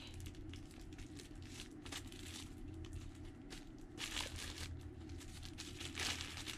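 Thin plastic wrapping crinkling and rustling as a pair of sunglasses is pulled out of it, in irregular little crackles with louder rustles about four and six seconds in.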